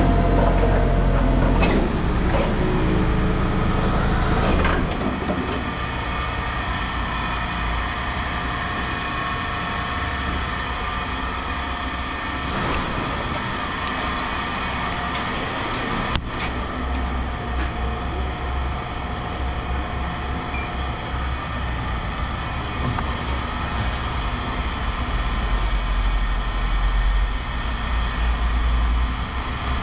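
A motor or engine running steadily with a low rumble and a hum of steady tones, louder for the first few seconds and then settling; a single sharp click about sixteen seconds in.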